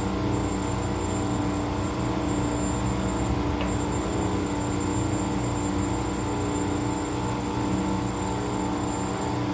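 Isuzu 4JJ1 four-cylinder diesel engine running at a steady idle.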